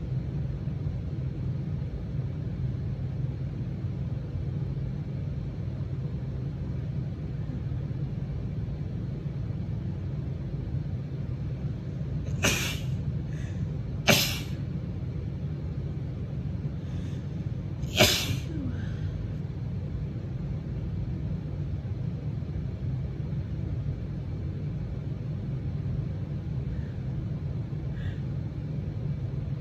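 A woman sneezes three times, allergy sneezes: a smaller one about halfway through, a sharp loud one soon after, and another loud one a few seconds later. A steady low hum runs underneath.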